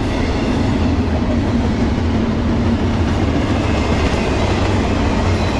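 A CSX intermodal freight train's double-stack container well cars rolling past at close range: a steady noise of steel wheels on rail, with a faint low hum in the first half.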